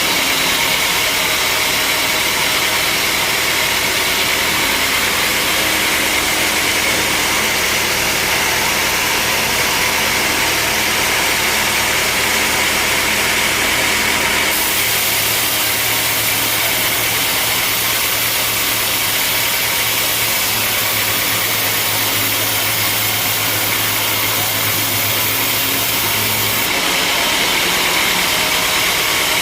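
Sawmill machinery running with a loud, steady mechanical noise. Its tone changes abruptly about halfway through, when a low hum comes in, and changes back near the end.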